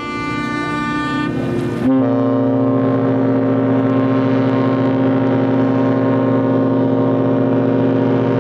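A Cunard ship's horn blowing a long steady blast of several pitched tones. For the first two seconds a brighter, higher tone sounds over it. That tone settles in pitch at its start and then cuts off suddenly, and a deeper steady note holds on.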